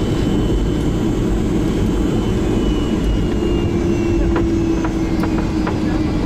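Steady jet-engine and airflow rumble heard inside the cabin of a Boeing 757-300. A faint tone slides slightly lower through the second half, with a few faint clicks.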